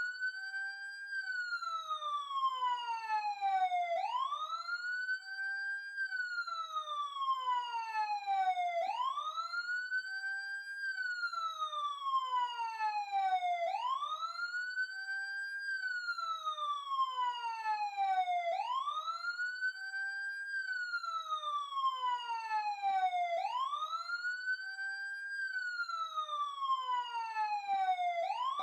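Police siren in wail mode: the pitch climbs quickly, holds briefly at the top, then falls slowly, repeating about every five seconds.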